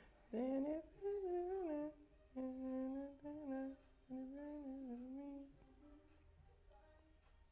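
A man humming a short tune to himself in about four phrases, with the pitch sliding up and down. He stops about five and a half seconds in.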